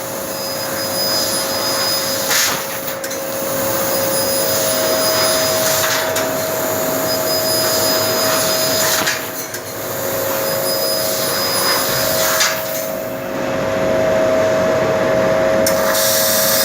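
A 1500 W fiber laser cutting machine at work: a steady rushing hiss with a constant hum underneath, dipping briefly a few times.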